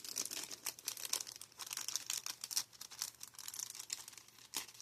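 Packaging crinkling and rustling in irregular bursts as it is handled by hand while items are taken out of a package.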